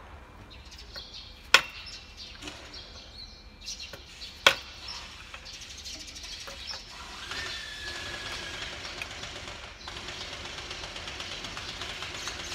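Two sharp metal-on-metal strikes about three seconds apart, with lighter clinks between them: a hammer being struck on a pry bar to free a stiff, stuck injector from the cylinder head of a Nissan GE13 diesel engine.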